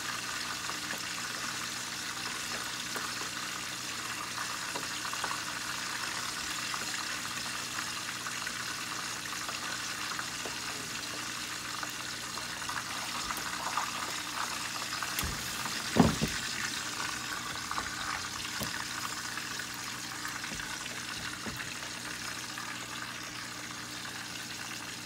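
Pork belly deep-frying in hot oil under a glass lid, giving a steady sizzle. There is one sharp pop about sixteen seconds in.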